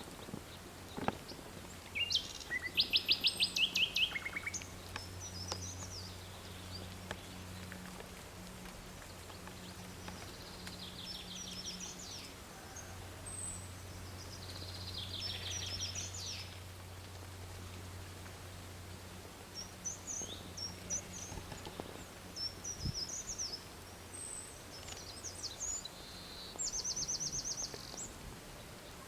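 Songbirds singing, several bouts of quick trilled phrases of high repeated notes, over a faint low steady hum.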